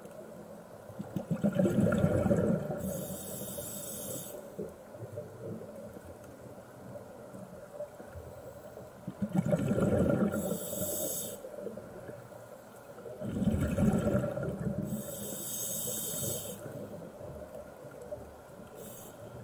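Scuba diver breathing through a regulator underwater: three breaths, each a rumbling gush of exhaled bubbles followed by the high hiss of the regulator on the inhale.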